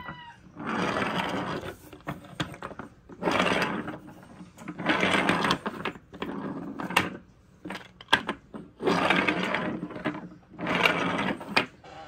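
Small painted wooden toy train rolled back and forth on a wooden tabletop: its wheels rumble in repeated rolls of about a second each, with a few sharp knocks in between.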